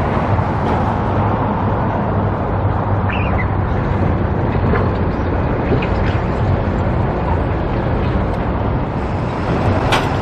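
Steady rumble of road traffic and engines, with a sharp click near the end.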